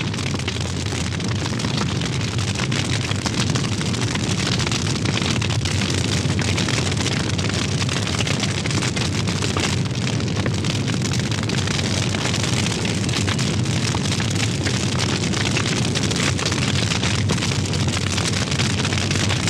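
Steady rushing noise with a fine crackle and no voice or tune, an added sound effect.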